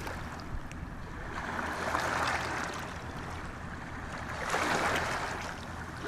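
Sea waves washing against shore rocks, with two swells of surging water, about two seconds in and again around five seconds in.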